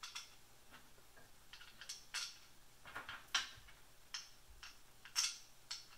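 Small machine screws clicking against each other and against a flat mounting plate as they are picked up and set one by one into its holes. The clicks come at irregular intervals, and a few sharper ones fall midway and near the end.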